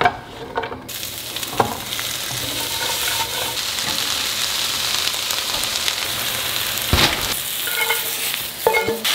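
Zucchini slices and raw chicken pieces sizzling in hot frying pans, a steady hiss that starts about a second in. A few sharp knocks of pan and utensil cut through it, and near the end the cooked zucchini is tipped out of the pan into a wooden bowl with a clatter.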